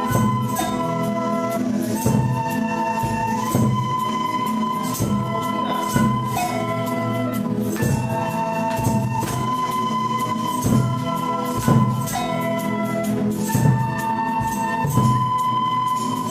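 Music: sustained instrumental notes over steady percussion with regular accented hits.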